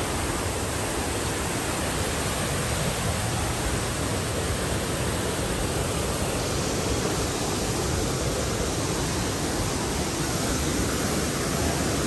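Waterfall pouring, a steady and unbroken rushing of falling water.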